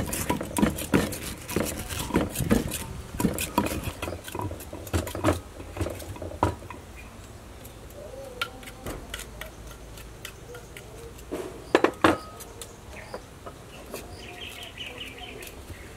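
A cleaver shaving the rind off a whole pineapple: a quick run of scraping cuts and knocks against a wooden board, thinning out about six seconds in to occasional clicks, with two sharp knocks about twelve seconds in.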